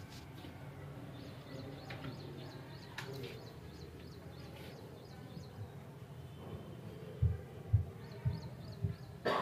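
Footsteps on a hard floor, four low thumps about half a second apart near the end, over a quiet background with faint birds chirping.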